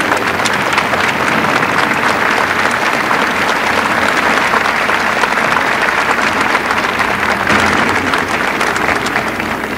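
Large crowd applauding, a dense steady clatter of many hands clapping that eases off near the end.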